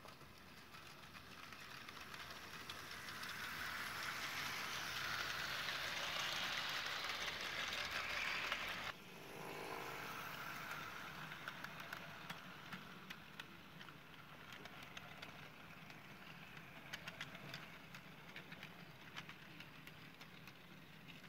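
00 gauge model train running on its track: the locomotive's small electric motor whirs and the wheels rattle along the rails, growing louder as it approaches and then dropping suddenly about nine seconds in. After that, quieter rolling with many light clicks of wheels over rail joints as the wagons and brake van pass.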